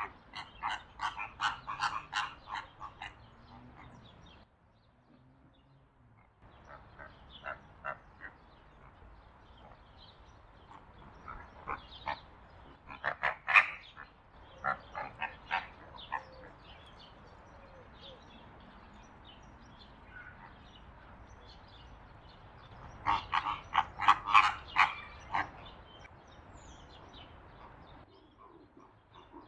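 Greater flamingos calling: bouts of rapid, nasal, honking gabble, several short calls a second, separated by quieter pauses.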